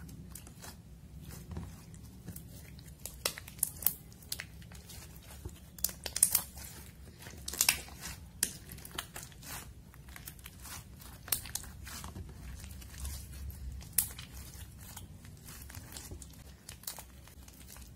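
Glossy slime being kneaded, folded and squeezed by hand, giving off irregular sticky clicks and crackles as it stretches and presses together, loudest in the middle of the stretch and once more near the end.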